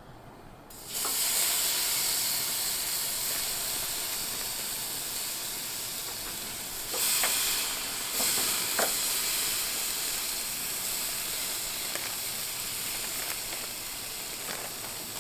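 Jerk pork sizzling on the grate of a hot Magma propane grill, starting suddenly about a second in and swelling louder about seven seconds in.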